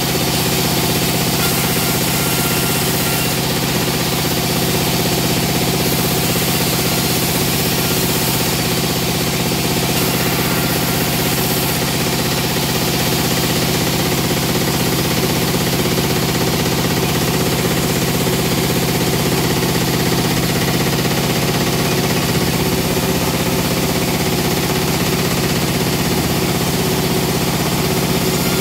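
Plywood veneer peeling machine running with a loud, steady, even mechanical hum that does not change or stop.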